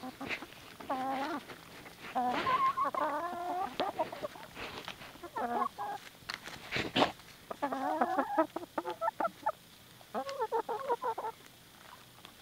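Barred Plymouth Rock hens clucking in several short bursts as they feed, with a few sharp knocks among them, the loudest about seven seconds in.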